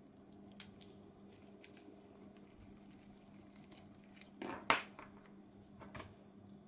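Faint clicks and taps of a small precision screwdriver working a rear-cover screw of a Daiwa BG6500 spinning reel, with the loudest tap about four and a half seconds in and another near the end, over a steady faint hum.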